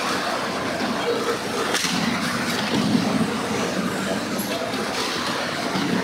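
Youth ice hockey game in play: a steady scraping hiss of skates on ice, with a sharp knock about two seconds in and voices in the background.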